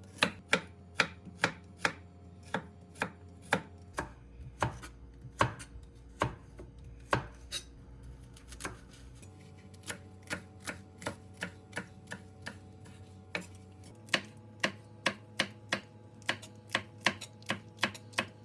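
Kitchen knife chopping food on a cutting board: steady, rhythmic strikes about two to three a second, with a lull around eight to nine seconds in.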